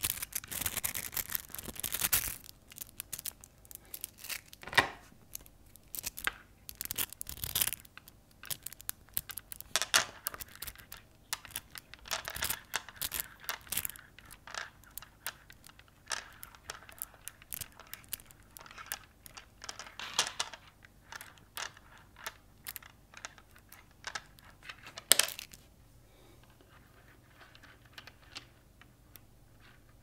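Small neodymium magnetic balls clicking and clattering as they are pulled apart from a clump and snapped back together into strands. Runs of sharp clicks come and go, with one loud snap about 25 seconds in, and only faint clicks in the last few seconds.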